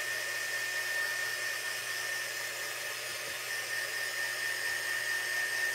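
Handheld craft heat tool blowing steadily, an even whoosh with a thin high whine, drying chalk paste on a chalkboard surface.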